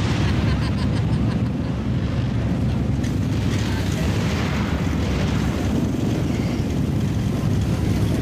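A large vehicle engine running steadily under load, a constant low drone with no clear revving up or down.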